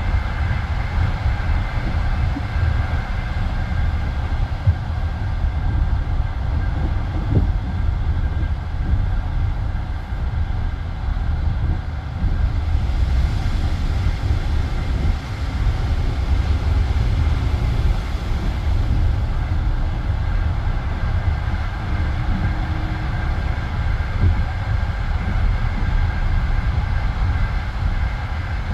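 Passenger railway carriage running along the line: a steady low rumble of wheels on rails, with an occasional faint knock.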